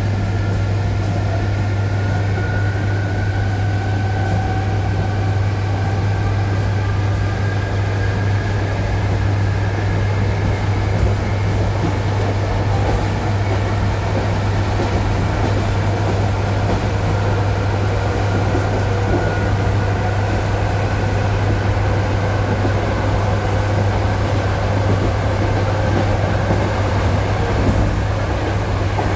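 ED9E electric multiple-unit train heard from inside the car, pulling away and accelerating: the traction motors whine in faint tones that slowly rise in pitch over a steady low hum, with the rumble of wheels on jointed rail underneath.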